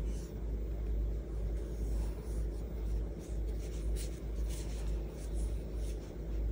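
Cotton yarn and a tapestry needle being drawn through crocheted stitches: soft, irregular scratchy rubbing, over a steady low hum.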